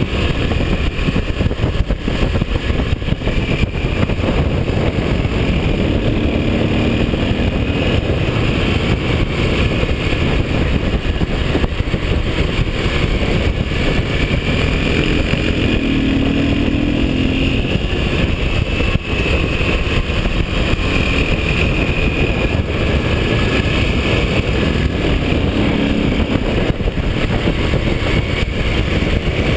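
Motorcycle engine running at track speed, heard from a camera on the bike under heavy wind buffeting, the engine note drifting up and down a little through the corners.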